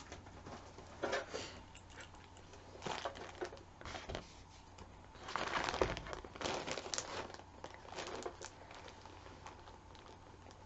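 A clear plastic zip-top bag crinkling as it is handled, in irregular rustling bursts with a few small knocks, loudest about five to six seconds in.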